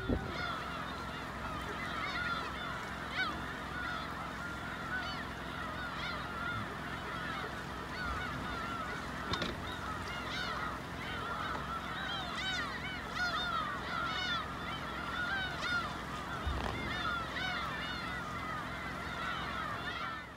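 A large flock of geese calling in flight overhead: many short honking calls overlap without pause.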